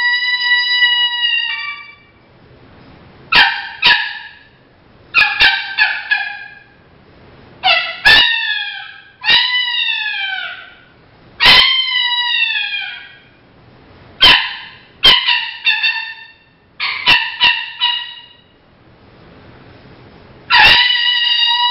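Mouth-blown four-reed diaphragm coyote call. A held, steady howl note ends about two seconds in, followed by a string of short barks and yips that each drop in pitch, mostly two to four in quick succession. Another steady howl note starts near the end.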